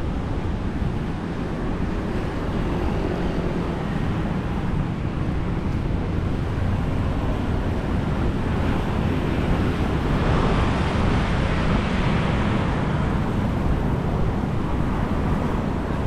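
Surf washing onto a sandy beach, one wave swelling louder about ten seconds in and then fading, over a low rumble of wind buffeting the microphone.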